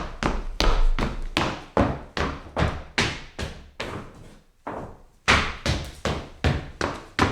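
Footsteps of hard-soled shoes on a wooden floor, a sharp clack at each step, about two to three steps a second. The steps grow quieter and slow briefly around the middle, then pick up again.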